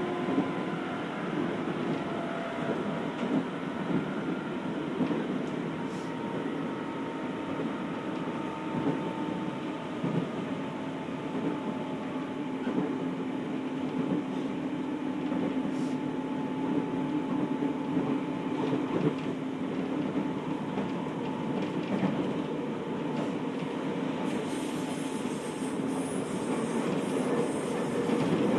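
Running sound inside a JR 211-series electric train's motor car (MoHa 210): steady rolling noise with a low, even hum from the traction motors and gears and light rail clicks. A high hiss joins near the end.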